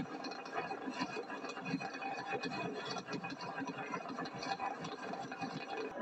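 Fireworks crackling densely and evenly, many small pops running together with no single big bang.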